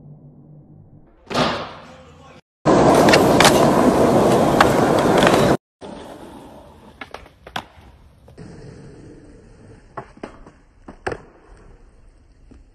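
Skateboard sounds across several short clips: a sharp board hit about a second and a half in, a loud rushing noise for about three seconds, then wheels rolling on pavement with several sharp clacks of the board.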